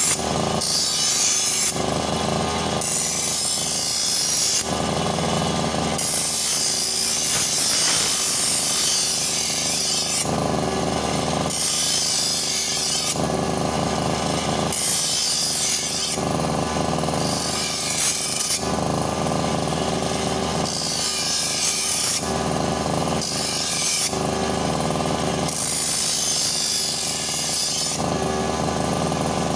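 Repeated scraping or rubbing strokes, each about a second long, coming roughly every one and a half to two seconds over a faint steady hum.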